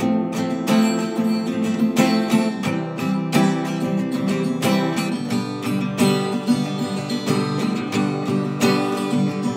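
Two acoustic guitars, a nylon-string classical guitar and a steel-string acoustic, strummed and picked together in a rhythmic instrumental passage with no singing.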